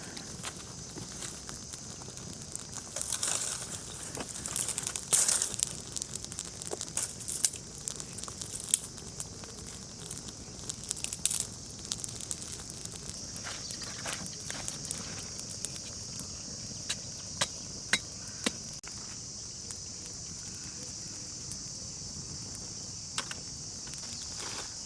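Insects trilling steadily and shrilly, louder from about halfway, with irregular crinkling and crackling of dry material being handled, busiest in the first half.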